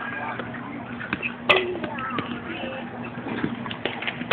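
Batting-cage knocks: one sharp crack about one and a half seconds in, a few lighter knocks later and a loud one at the very end, over a steady hum and faint distant voices.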